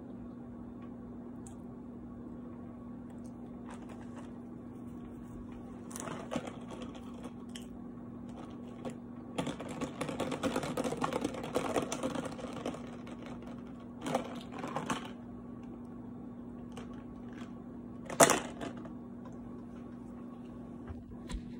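Steady hum of a box fan with scattered small clicks and handling noises. For about three seconds in the middle, a thin plastic water bottle crinkles and crackles as it is handled, with a few shorter crackles later.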